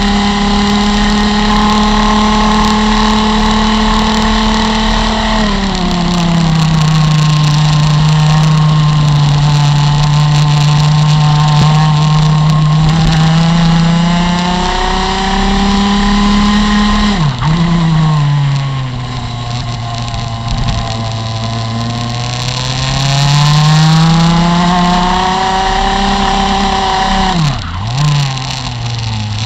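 Rotax MAX FR125 Senior single-cylinder two-stroke kart engine at high revs, heard onboard with wind rush. The engine's pitch holds high, falls and rises again in long sweeps through corners, and twice dips sharply for a moment before picking back up.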